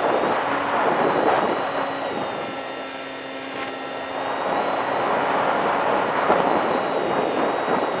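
Airflow rushing and buffeting over the onboard camera of a Bixler electric RC plane in gusty flight, with a faint steady whine of its electric motor and propeller underneath. The rush eases about three seconds in and then builds again.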